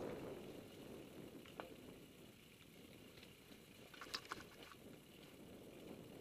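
Mountain bike rolling along a dirt forest trail: a faint low rumble of tyres over the ground, with a single click about a second and a half in and a short burst of sharp rattles and clicks from the bike about four seconds in.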